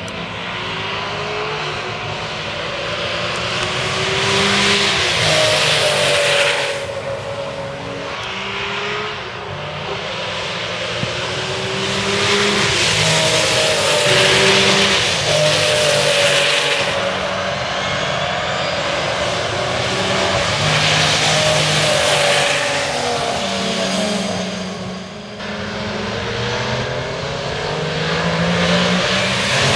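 1973 Porsche 911 RSR's 2.8-litre flat-six racing engine under hard acceleration, its pitch climbing again and again with short breaks at each gear change. It swells loud and fades several times as the car passes.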